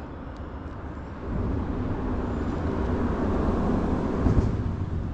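Low engine rumble of a passing motor vehicle, swelling about a second in and then holding steady.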